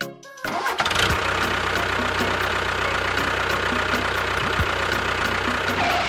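A tractor engine starting about half a second in, then running steadily with a low, even rumble.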